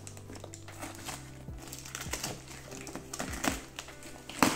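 Background music with scattered clicks, rustles and crinkles from a cardboard box and its packaging being handled and opened, and a sharp knock near the end.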